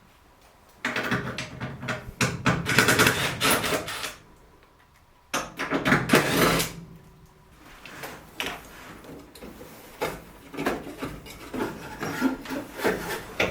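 Rubbing, scraping noise from a furnace draft inducer motor being worked by hand, dragging instead of spinning freely because it is seized up. Two long scraping stretches, then lighter clicks and knocks of handling.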